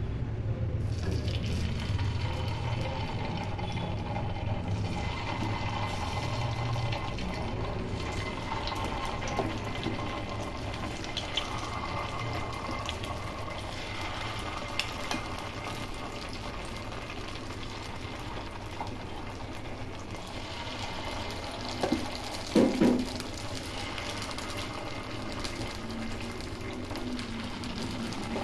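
Batter being ladled into the hot oiled wells of a kuzhi paniyaram pan, the oil sizzling steadily as the wells fill. A couple of sharp knocks about three-quarters of the way through.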